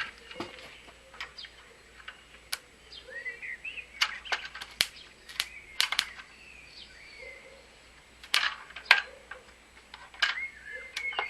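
Birds chirping and singing, with a low repeated cooing, over a series of sharp irregular clicks and taps; the two loudest clicks come about eight and a half seconds in.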